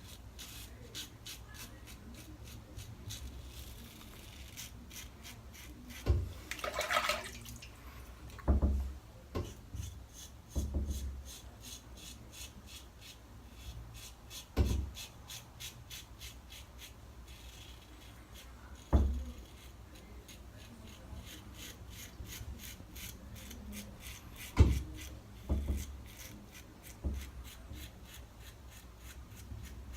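1912 Gem Clog Pruf single-edge safety razor scraping through lathered stubble in quick, repeated short strokes, a crisp rasp against the skin, with a few soft knocks in between.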